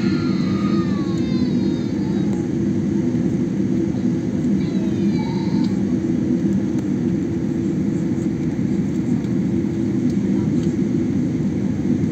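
Steady low rumble of a jet airliner's cabin, engine and air noise heard from inside the plane as it taxis.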